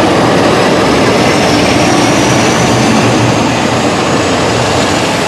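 Class 47 diesel locomotives' Sulzer V12 engines running hard under power as they pass close by, a loud steady engine noise, with a faint high turbocharger whine rising slowly in pitch.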